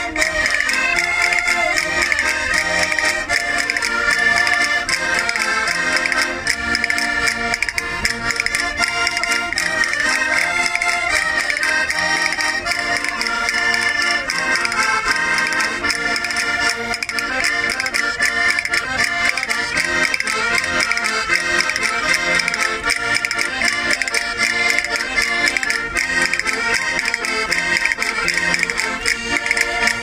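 Several Portuguese concertinas, small diatonic button accordions, playing a traditional tune together.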